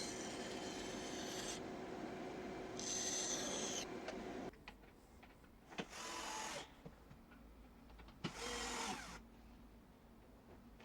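Handheld power tool working wood: it runs steadily for about four and a half seconds and stops, then gives two short bursts of under a second each.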